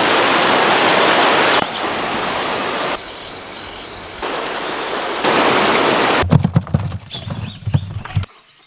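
Running water, a steady rushing hiss in several short clips that cut from one to the next at different loudness. For the last couple of seconds it gives way to irregular knocks and low thumps.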